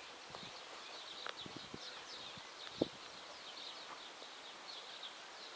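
Small birds chirping over and over in short, high notes, over a faint steady hiss, with a few soft taps, the clearest about three seconds in.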